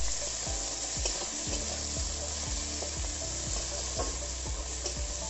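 Sliced onions sizzling in hot mustard oil in a steel kadai, with a steady frying hiss. A steel spatula scrapes and taps the pan now and then as the onions are stirred.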